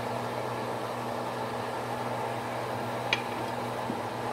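Steady, fan-like mechanical hum and hiss. About three seconds in comes a single short click as a wooden spoon is set down on the glass pot lid.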